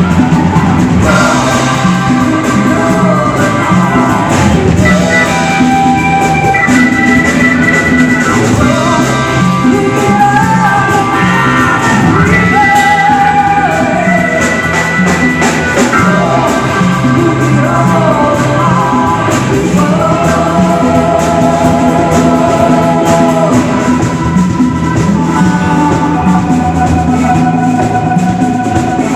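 Live band playing a song, with a lead singer's voice over the band's instruments.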